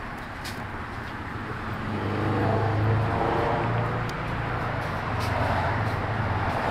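A motor vehicle's engine running close by, a low steady hum that grows louder about two seconds in, over general street traffic noise.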